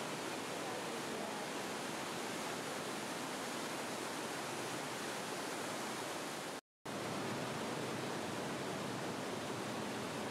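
Steady rushing of a waterfall and the torrent below it in a narrow gorge, an even wash of water noise. It drops out for a split second about two-thirds of the way through, then carries on unchanged.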